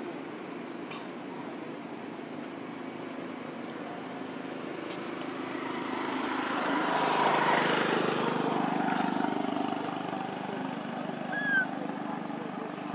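A vehicle passing at a distance: a broad engine-and-road noise that swells to a peak around the middle and fades away, over a steady low background hum. Small birds give a few short, high chirps, and one louder short chirp comes near the end.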